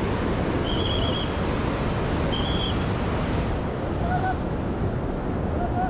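Steady rushing of a fast, rocky mountain river in white-water flow. Two short high-pitched tones sound within the first three seconds.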